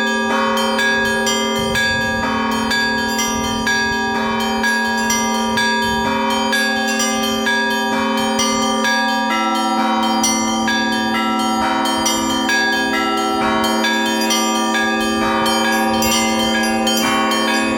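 Russian Orthodox church bells ringing a festive peal after the festal Liturgy: rapid, continuous strikes of smaller bells over the steady hum of larger bells. A middle bell's tone changes about nine seconds in.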